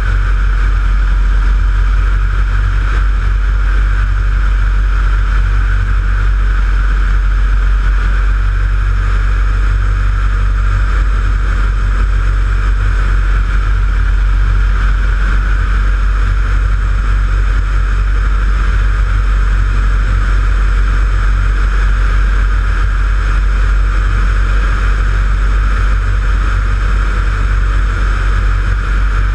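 Engine and propeller of a Jabiru light aircraft running steadily in flight, heard from a camera mounted on the wing, a steady low drone with no change in pitch.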